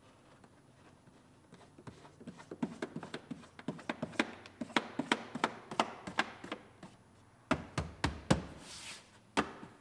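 Hands working a plastic interior trim panel and the rubber hatch-opening gasket: a run of small clicks and taps as the gasket is pulled out from under the panel edge and the panel is pressed home, with a few sharper clicks near the end.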